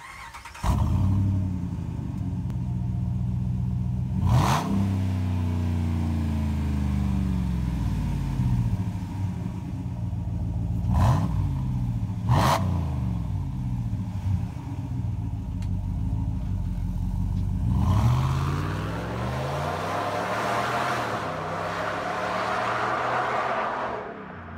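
Ram 1500's 5.7L Hemi V8 through an MRT stainless dual cat-back exhaust: it starts about half a second in and idles, with three quick revs, at about 4 s and then twice close together near 11 and 12 s. From about 18 s it pulls away and drives off, fading near the end.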